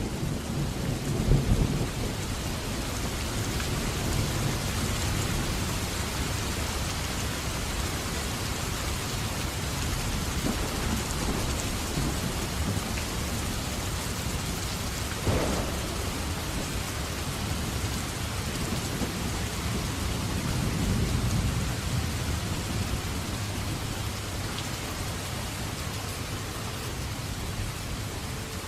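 Thunderstorm: steady heavy rain with low thunder rumbling, strongest about a second in and again near three-quarters of the way through. A brief sharp tap sounds about halfway.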